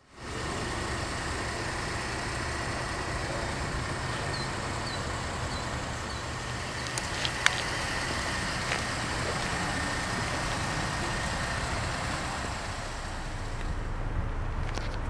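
Steady outdoor background rumble and hiss, vehicle-like, like road traffic, with a few faint high chirps and two sharp clicks about halfway through.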